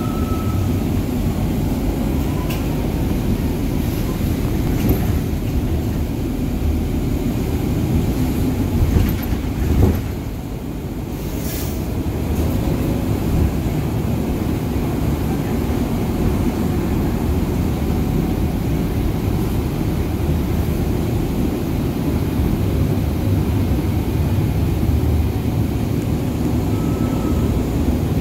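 Steady low rumble of road and engine noise heard from inside a moving vehicle, with a short knock about ten seconds in and a brief lull just after.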